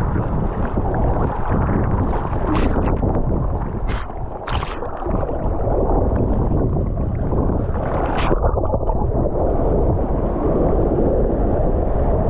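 Wind rushing over an action camera's microphone while kitesurfing, with the steady rush of the board over the water. A few brief, sharp splashes of spray come between about two and a half and eight seconds in.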